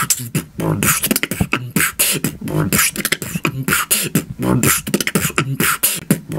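Beatboxing: a fast, steady vocal drum beat of mouth kicks, snares and hi-hat clicks over a pitched vocal bass line.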